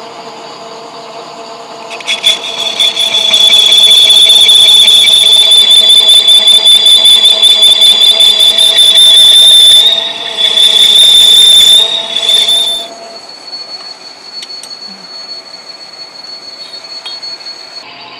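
Metal lathe cutting a truck engine sleeve: the cutting tool screeches loudly at a high, steady pitch for about eleven seconds, starting about two seconds in, with a short break partway. The lathe then runs on quietly.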